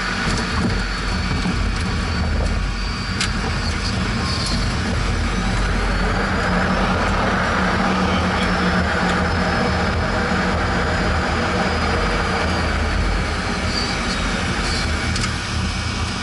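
Steady jet engine and airflow noise of a Cessna Citation 501 landing in strong wind, its twin Pratt & Whitney JT15D turbofans giving a faint high whine that drifts slightly up and back down in pitch over a low rumble.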